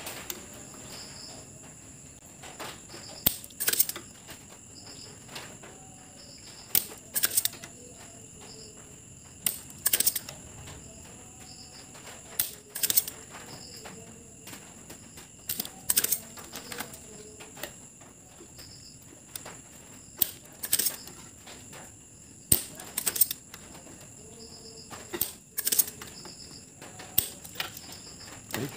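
Spring-loaded desoldering pump (solder sucker) snapping as its plunger fires, a sharp click every few seconds, often two about half a second apart, while stubborn solder is drawn off an LED's leads on a circuit board.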